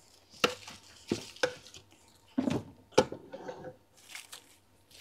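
Hard plastic MRI receiver coils knocking and clattering against each other and the shelf as they are picked up and moved, about seven sharp knocks spread across the few seconds.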